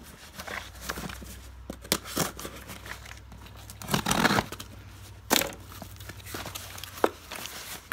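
Scissors cutting through packing tape on a cardboard box, then the flaps being pried open: cardboard scraping and tape tearing in short rasps and clicks. The louder rasps come about four and five seconds in.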